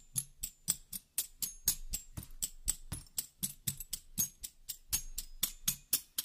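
Background music: a light percussion track of quick, evenly spaced hits, about four or five a second.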